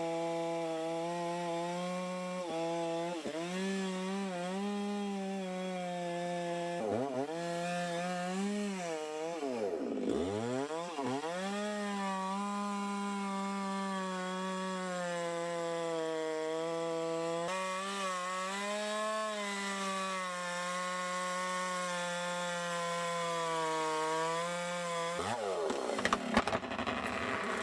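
Chainsaw running at full throttle in a cut through a tree, its pitch dipping and recovering several times as the chain loads up in the wood, most deeply about ten seconds in. Near the end the throttle is let off and the pitch drops away.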